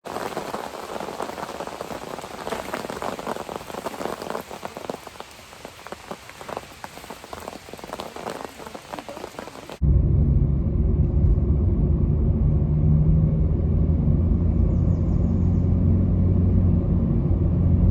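Rain pattering, with dense drop clicks. About ten seconds in, it cuts abruptly to a much louder, steady, deep rumble.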